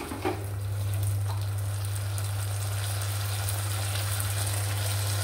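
A pan of braising soybean-sauce and coconut mixture sizzling faintly, under a loud, steady low hum that starts just after the beginning.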